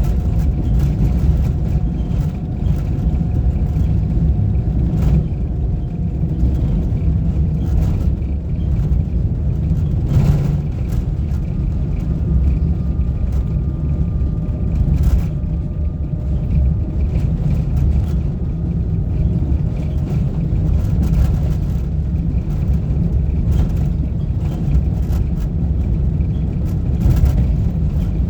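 A moving road vehicle: a steady low rumble of engine and tyres on the road, with a few short knocks along the way.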